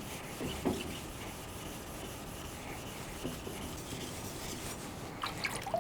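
A bunka kitchen knife's edge is stroked steadily across a wet Suehiro Rika 5000-grit finishing whetstone, making an even scraping rub. A few faint knocks sound along the way.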